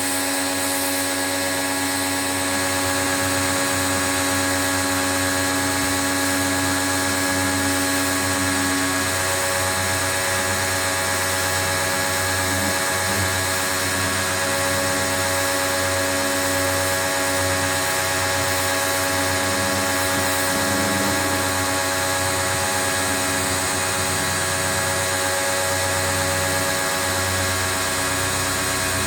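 Pro-Kleen 1600 pressure washer running steadily, a constant motor hum over a hiss.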